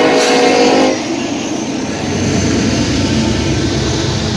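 Freight locomotive's air horn sounding a sustained chord that cuts off about a second in, then the steady rumble of a Norfolk Southern double-stack intermodal freight train rolling past on the track.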